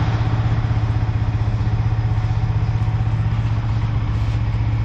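Yamaha R15 V3's 155 cc single-cylinder engine idling steadily with an even low pulse.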